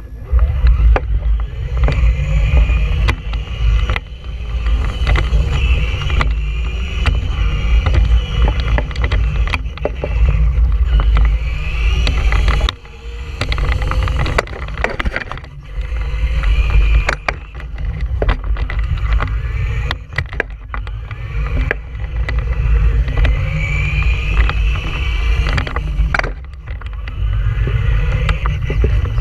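Electric Traxxas Stampede 2WD RC monster truck driving on asphalt. The motor and gears whine, rising and falling in pitch as the throttle is worked. Under it runs a heavy low rumble from the tyres and chassis, with frequent small clicks and knocks.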